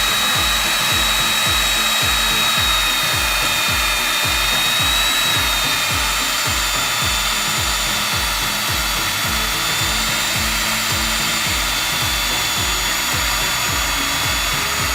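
Electric core drill with a diamond core barrel running steadily while cutting into concrete, a high whine over an even low pulsing.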